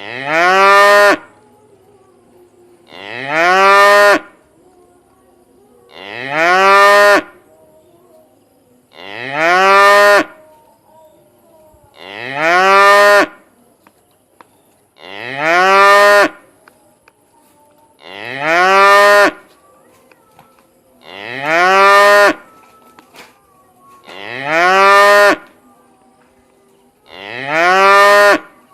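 A cow mooing over and over: about ten short calls, each rising in pitch and then levelling off, evenly spaced about every three seconds.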